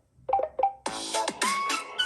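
Samsung Galaxy S22 Ultra stock ringtone melody: a few short plucked electronic notes, then about a second in a fuller, brighter synth phrase with notes that bend upward in pitch.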